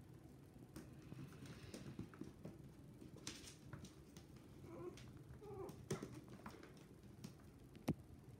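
Faint sounds of puppies eating from a food bowl: scattered small clicks, with a few brief squeaks about five to six seconds in and a sharp click near the end.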